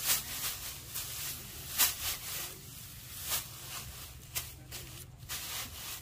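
Harvested rice stalks rustling as they are handled, in a string of irregular dry swishes, the loudest about two seconds in.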